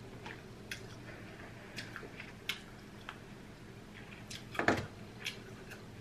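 Close-up eating sounds: wet smacking clicks and chewing as crab meat is pulled from the shell and eaten. About three-quarters of the way through comes a louder cluster of cracks as a crab leg is broken apart by hand.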